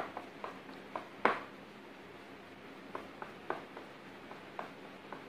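Wire balloon whisk beating a thin cake batter in a bowl, its wires clicking and tapping against the bowl's sides in an irregular run of light taps, the loudest about a second in.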